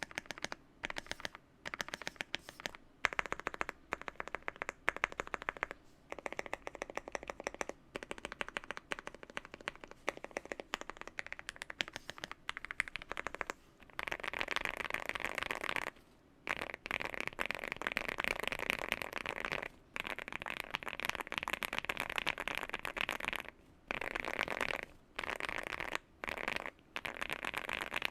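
Fast typing on a Zoom65 mechanical keyboard with Gateron Oil King linear switches, foam-filled and tape-modded for a deep 'thock'. It comes in dense runs of key strikes broken by short pauses, with a longer, steadier stretch of typing from about halfway.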